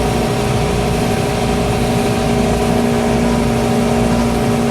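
Workshop air compressor running steadily, a constant machine hum with a low tone that grows stronger about halfway through. The owners suspect its intake check valve of sticking, which is why it loses pressure.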